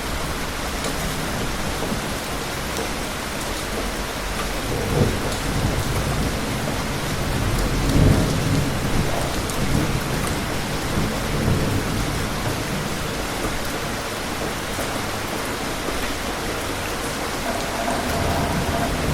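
Steady rain falling, with distant thunder rumbling in low swells several times, the strongest about eight seconds in.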